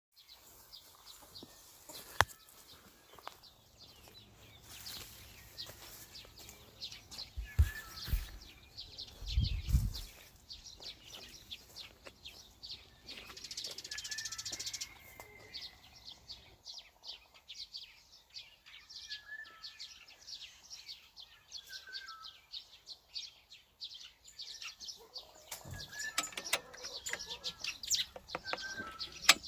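Small birds chirping and twittering throughout, with a few sharp knocks and low thumps, the loudest about two seconds in and around eight and ten seconds.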